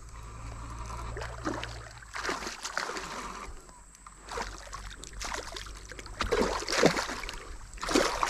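Shallow stream water splashing and sloshing in irregular bursts as a hooked bass is played and drawn in on a spinning rod, growing louder near the end as the fish comes close.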